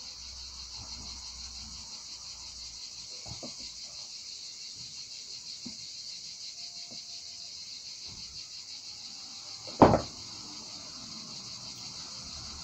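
Steady high-pitched insect chirring runs throughout. Over it come faint small clicks of hands working steel fishing wire and swivels at a table, with one sharp click near the end.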